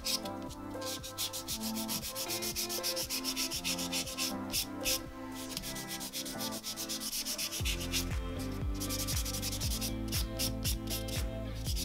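Semilac 100/180 grit hand nail file rasping back and forth over a hardened gel nail extension in quick, steady strokes, shaping the nail.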